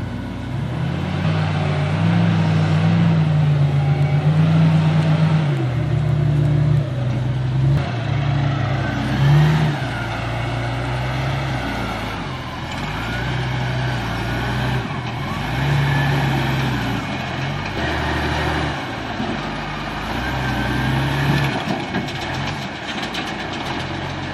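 Heavy machinery's diesel engine running under load, its pitch rising and falling in steps as the machine works.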